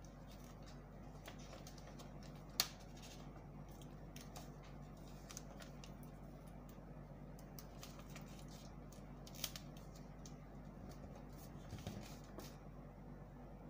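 Faint scattered ticks and rustles of a paper sleeve pattern and tape being handled as it is taped down, with two sharper clicks, one about two and a half seconds in and one about nine and a half seconds in, over a low steady hum.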